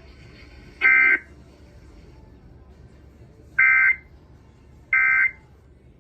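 Emergency Alert System digital data bursts: short two-tone warbling screeches, each about a third of a second long, one about a second in and two more later a little over a second apart. These are the SAME end-of-message bursts that close a weather warning broadcast, heard over a radio receiver's low hiss.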